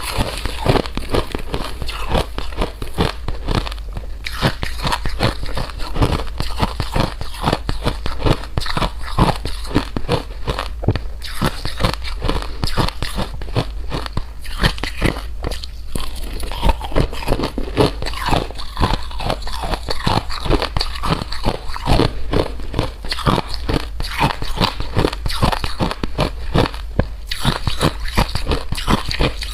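Close-miked crisp crunching of hard, crunchy food being bitten and chewed, a dense, rapid run of sharp crunches.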